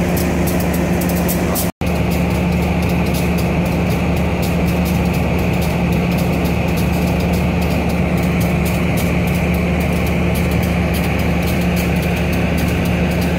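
A train's diesel engine running with a steady low hum. The sound cuts out for an instant about two seconds in.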